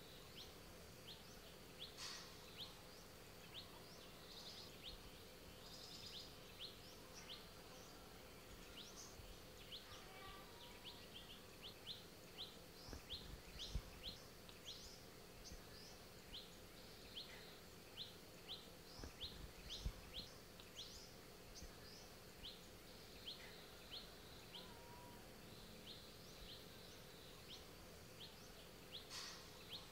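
Faint garden ambience: small birds chirping in short repeated high notes, over a steady high whine and a low hum. Two brief low thumps come about halfway through.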